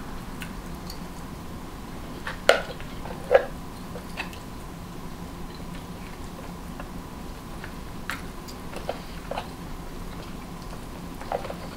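A person eating a seafood boil close to the microphone: chewing, with scattered sharp clicks and cracks. The two loudest come about two and a half and three and a half seconds in. A faint steady hum runs underneath.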